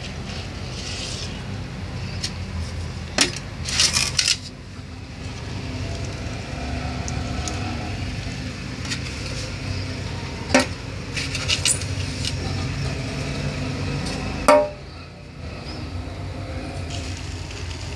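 Hands handling metal and clay plant pots while homemade fertilizer is put into them: scattered small clinks and rustles, with a few sharper knocks, over a steady low rumble.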